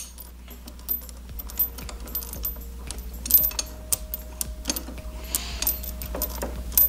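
Two steel 9/16 combination wrenches clinking against each other and the tie rod end as the rod end is unscrewed by hand: a run of light, irregular metallic clicks and taps.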